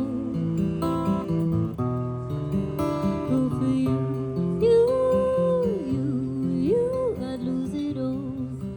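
Acoustic guitar music, strummed chords with a long held melody note that slides up, holds and slides back down near the middle.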